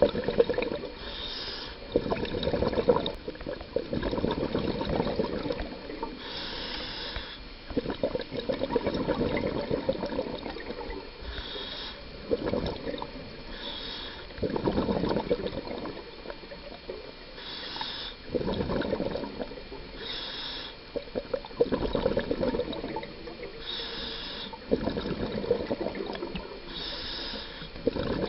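Scuba diver breathing through a regulator underwater. Bursts of exhaled bubbles lasting a second or two alternate every few seconds with short hisses.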